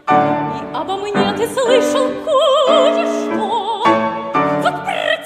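Soprano singing a classical art song with piano accompaniment, sustaining several notes with a wide vibrato.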